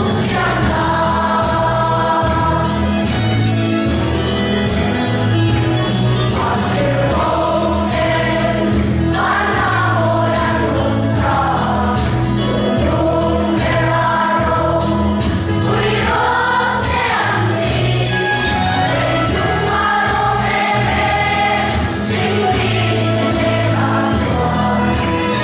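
A children's choir sings a hymn together, holding long notes over a steady instrumental bass accompaniment.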